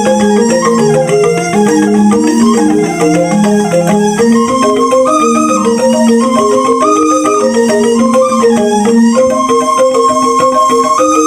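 Balinese rindik (bamboo xylophone) music: a fast, busy mallet pattern of interlocking struck notes, with a held higher melody line stepping slowly above it.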